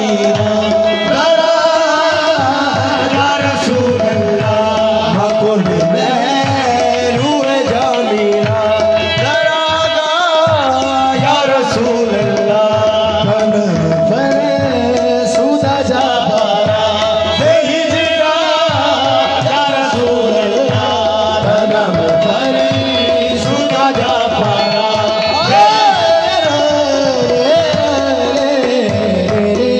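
Qawwali performed live: lead voices singing over two harmoniums, with a steady held harmonium note beneath the melody and the chorus clapping along.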